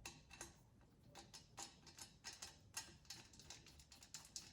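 Faint, irregular light clicks and ticks of an M5 screw being turned in by hand with a small tool, the tool and screw clicking against the metal parts of the laser engraver's frame.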